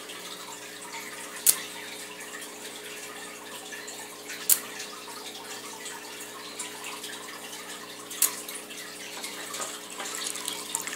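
Baltic amber bead bracelets dropped one at a time into a glass bowl of salt water: three sharp splashes a few seconds apart. Near the end a hand swishes about in the water among the floating beads.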